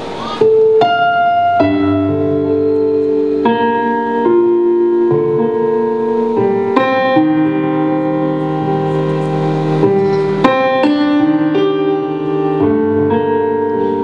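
Piano music: slow, held chords and single notes, each ringing for a second or more before the next enters.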